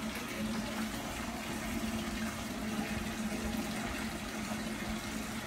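Three-spout wall fountain pouring water into its stone basin: a steady splashing rush.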